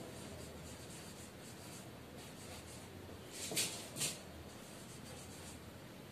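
Marker pen writing on a whiteboard, faint strokes. Two short, louder sounds come close together a little past halfway.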